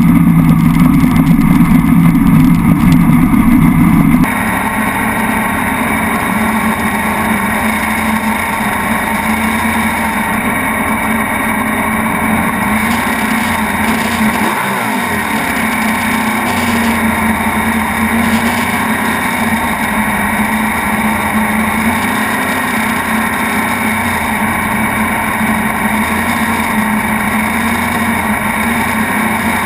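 Sand drag jeep's naturally aspirated small-block Chevy V8 running loudly for the first four seconds. After a sudden drop in level it settles into a steady idle, with the engine note dipping and coming back once about midway.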